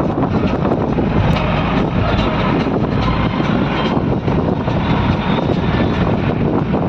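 Steady, loud rumbling rush of noise from a moving vehicle, with no clear engine tone.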